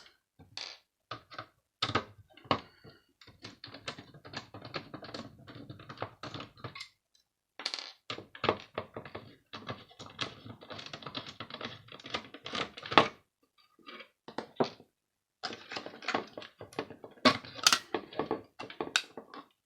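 Irregular small clicks, taps and knocks of a screwdriver working out the four screws holding a circuit board, and of small plastic and metal parts being handled, with a few sharper knocks.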